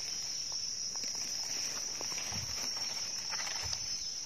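Steady high-pitched drone of insects, with soft scraping and crunching of a small knife digging into soil and leaf litter.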